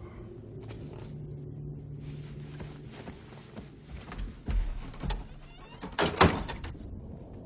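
Film sound effects in a dark-house scene: a low steady hum, then scattered knocks and a deep thump, the loudest two knocks a little after six seconds in.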